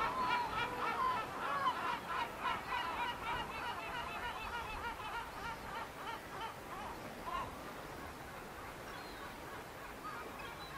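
Birds calling: a rapid, chattering series of short honking calls, several at a time, fading away after about seven seconds.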